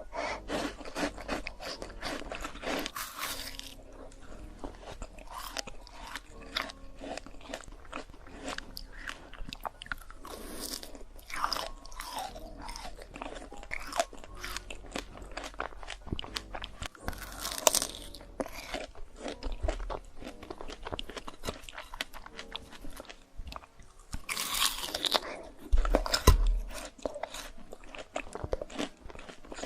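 A person biting and chewing fresh fruit: crisp crunches and chewing going on steadily, with a few louder bites spread through.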